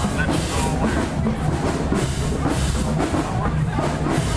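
Marching band playing in a parade, with drums beating a steady rhythm.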